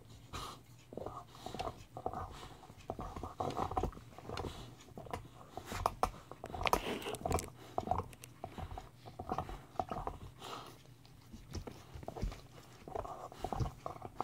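A dog chewing and gnawing a red rubber bone-shaped toy, with irregular clicks of teeth on the rubber.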